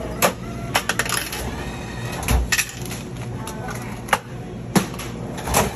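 Irregular sharp clicks and knocks from cash and objects being handled at a drive-thru register counter, about a dozen in all, over a steady low hum.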